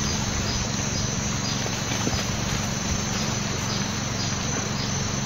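Insects chirring steadily over a constant low hum.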